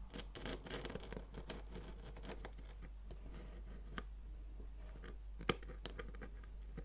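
Packaging being handled during an unboxing: scattered crinkles, scratches and sharp clicks, dense for the first couple of seconds, then sparser with a few single clicks.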